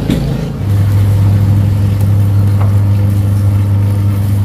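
A motor engine running at a steady speed, a loud low even hum that comes in about half a second in and holds one pitch throughout.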